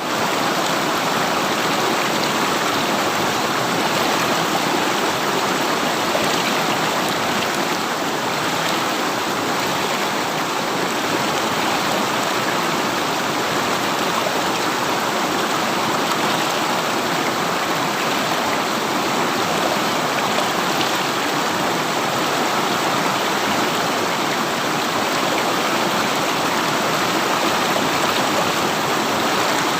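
River water flowing, a steady rushing of running water with no breaks.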